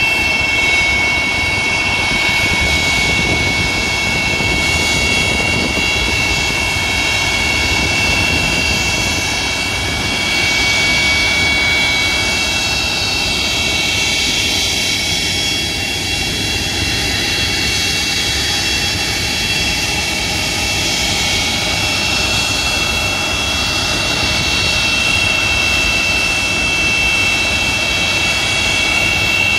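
Antonov An-225 Mriya's turbofan engines running at taxi power as the aircraft rolls slowly, a steady loud jet whine of several high tones over a low rumble.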